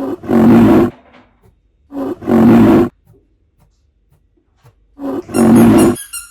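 A loud roar, three times, each about a second long.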